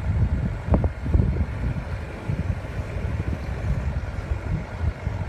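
A 4x4 driving slowly over a rough, rocky track: a low rumble of engine and tyres with irregular knocks and jolts from the suspension, the strongest about a second in.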